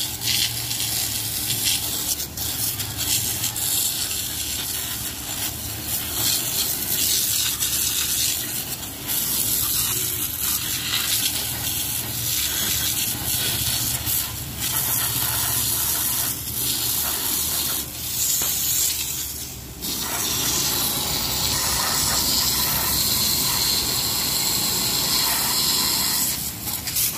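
High-pressure water jet hissing and splashing against a stripped Maruti XL6 engine block as it is washed down, over a steady low hum, breaking off briefly a few times.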